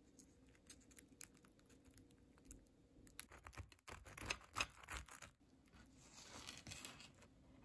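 Serrated bread knife sawing through a crusty bread roll: a dense crackling crunch of the crust, loudest about four and a half seconds in. A few light ticks come before it, and a softer crackle follows as the cut sandwich is pressed.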